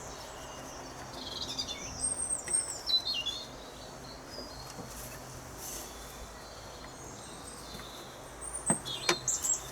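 Birds chirping outdoors in short, high, pitch-bending phrases, a little after the start and again near the end. A few sharp clicks near the end.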